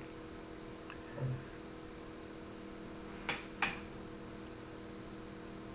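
Steady electrical mains hum, with two short sharp clicks about a third of a second apart a little past halfway and a faint low thump about a second in.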